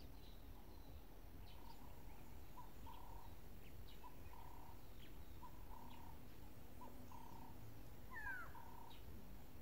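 Faint wild bird calls: a run of short repeated notes with quick downward chirps above them, and one louder gliding call near the end, over a low steady background rumble.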